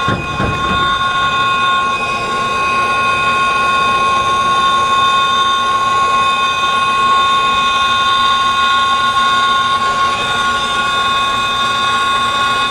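TurboTorch brazing torch flame running steadily, a hiss with a steady high whine, as it heats the copper line joints on an AC compressor to unbraze the old compressor.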